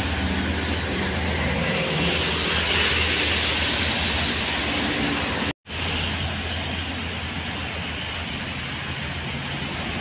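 Highway traffic passing: a steady rush of tyre and engine noise from cars and buses, swelling about a third of the way in as a vehicle goes by close. The sound cuts out for an instant about halfway through.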